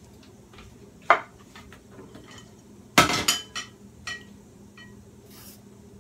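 Kitchen utensils knocking and clinking as they are handled and set down on a wooden cutting board, with a sharp knock about a second in, a louder one about three seconds in, and a few lighter clicks after it. Near the end come soft scraping strokes of a vegetable peeler along a cucumber.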